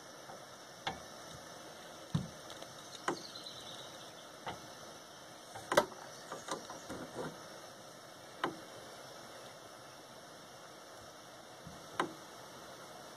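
Handheld gas torch hissing steadily as it heats a copper pipe joint for soldering, with scattered light clicks and knocks of metal being handled, the sharpest about six seconds in and another about twelve seconds in.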